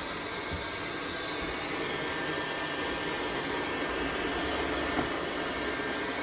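Robot vacuum cleaner running steadily: an even fan hiss with a faint high whine, and one small click about five seconds in.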